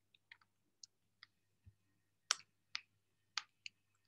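Computer keyboard keys typed one at a time: about ten faint, irregularly spaced clicks, a few louder than the rest.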